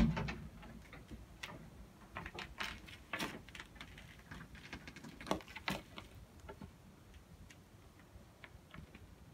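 A husky moving about on a wooden ledge: a dull thump at the start, then faint, irregular clicks and ticks that thin out after about six seconds.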